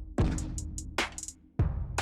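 Background music with a heavy electronic drum beat, deep kick and bass hits and hi-hat ticks, pausing briefly about a second and a half in before the beat comes back.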